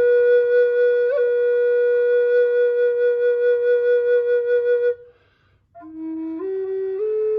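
Flute playing long held notes. A wavering note is held for about five seconds, there is a short pause for breath, and then a lower note steps up twice.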